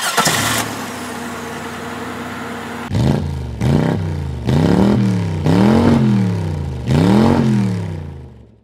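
A sharp hit at the start, then an engine idling steadily; from about three seconds in it is revved about five times, each rev rising and falling in pitch, and the sound fades out near the end.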